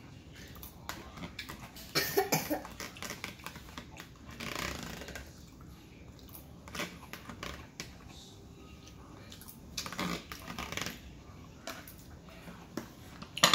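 A metal fork scraping and clicking in a plastic cup of coleslaw, with chewing and mouth sounds in irregular short bursts and a sharp click near the end.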